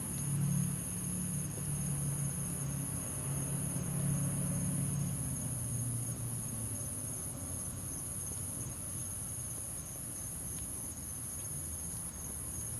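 Crickets trilling in a steady, high-pitched chorus that dips slightly about once a second. A low hum is present through the first few seconds and then fades.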